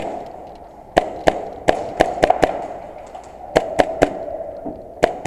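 Airsoft guns firing: about a dozen sharp shots in short strings of two to four.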